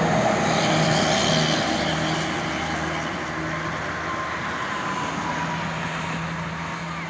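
Highway traffic: the steady tyre and engine noise of vehicles passing on a toll road, with a faint slowly falling tone about a second in, as a vehicle goes by.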